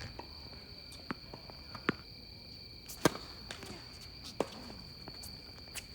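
Sharp knocks of a tennis ball off strings and hard court during a rally, about five over a few seconds, the loudest about halfway through. Underneath runs a steady high-pitched drone of night insects.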